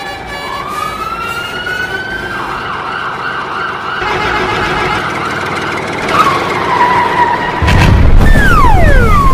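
Cartoon siren sound effect: it winds up in pitch, then warbles up and down for several seconds before settling on a lower tone. Near the end a loud low rumble comes in with a steeply falling whistle.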